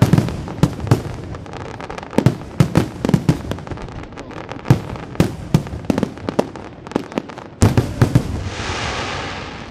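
Aerial fireworks display: shell bursts going off one after another as sharp bangs. About eight seconds in comes a quick volley of bangs, followed by a steady hiss lasting about a second.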